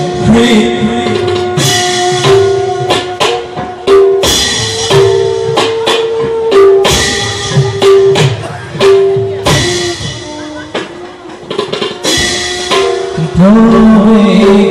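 Live drum accompaniment for a Bhaona dance: sharp, uneven drum strokes over a held melody line. A voice starts singing near the end.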